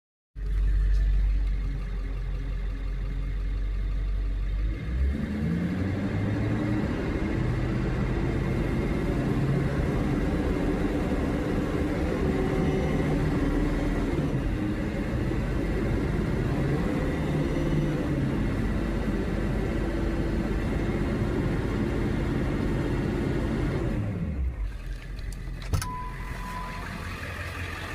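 Ford 7.3 Power Stroke turbodiesel V8 running, making a noise like a garbage truck. It idles low for about five seconds, is revved up and held at higher revs for about twenty seconds, then drops back to idle. The owner does not know the cause of the noise.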